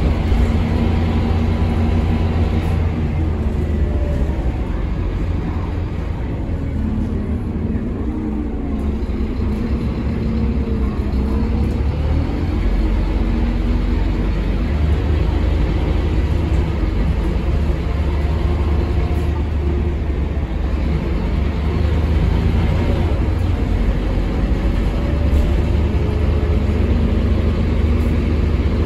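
Scania K230UB bus's rear-mounted DC9 five-cylinder diesel engine heard from inside the passenger cabin while riding: a steady low drone, with the engine note rising and falling several times.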